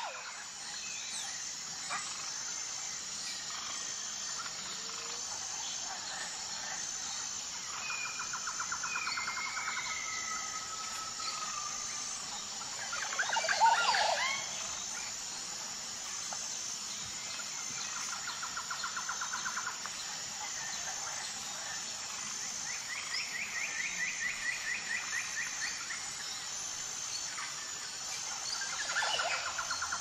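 Keel-billed toucan calling: several runs of rapid, evenly pulsed calls, one run higher-pitched, and one louder, harsher call about halfway through, over a steady high hiss.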